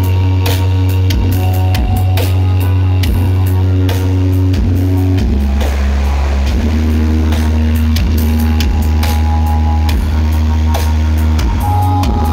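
Loud music with a heavy, held bass line and a steady beat of about two hits a second, played through a large outdoor-event sound system during a sound check.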